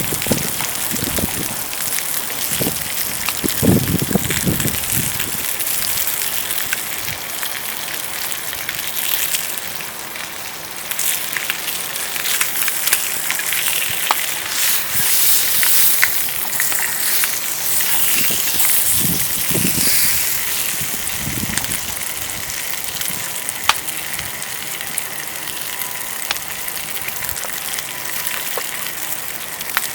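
Steady sizzling and crackling hiss of cooking over a small wood fire, with a few dull knocks a few seconds in and again about two-thirds through.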